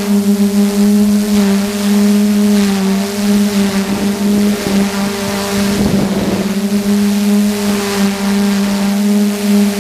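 Multirotor drone's electric motors and propellers humming steadily as heard from its onboard camera, the pitch wavering a little with throttle. A brief rush of wind-like noise about six seconds in.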